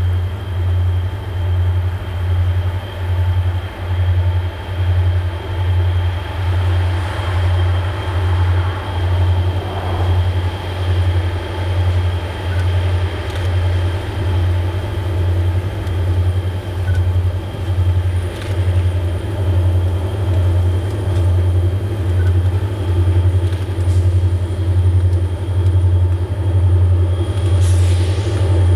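Two SD40M-2 diesel locomotives working a loaded sand train: a low rumble that pulses about once a second.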